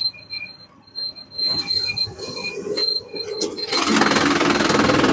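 Sawmill machinery running: a high squeal that breaks off and resumes, with a few clicks and knocks. About four seconds in, a loud, steady rushing noise takes over.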